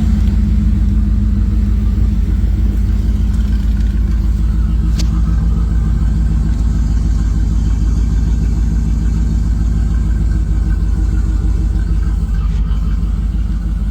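A 1987 Chevrolet Camaro IROC-Z's V8 engine running steadily and low-pitched, with no revving.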